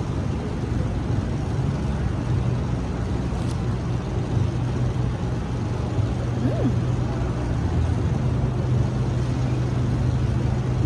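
Steady low engine hum, like a car idling, with a brief faint squeak about six and a half seconds in.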